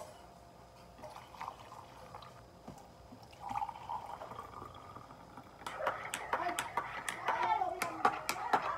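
Indistinct voices in a small room, faint at first and louder in the second half, mixed with a scatter of sharp clicks and knocks.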